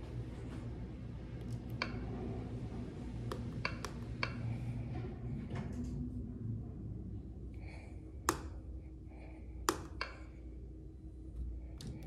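Inside an Otis elevator car: a low hum for the first seven seconds or so, then a few short high beeps and sharp clicks from the car's touchscreen panel near the end.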